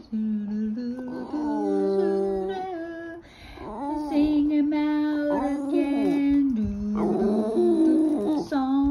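Boston Terrier howling along to a song in long, wavering, gliding notes, together with a woman's voice holding sung notes.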